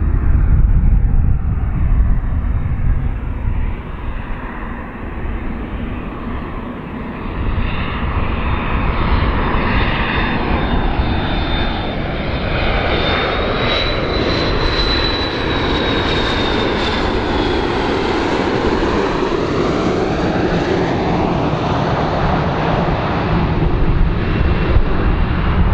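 McDonnell Douglas MD-80-series airliner flying past on landing approach, its two rear-mounted Pratt & Whitney JT8D turbofans giving a deep, steady rumble. A high engine whine comes in about halfway through, rising and then falling as the jet passes closest.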